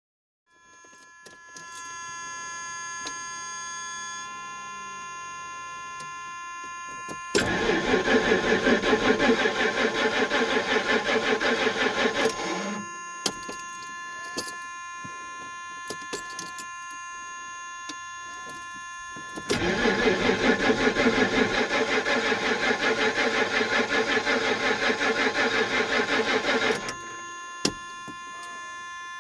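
Jaguar XJS starter cranking the engine in two long tries of about five and seven seconds, pulsing about four times a second, each cutting off without the engine catching: a no-start. Faint steady whining tones and a few clicks between the tries.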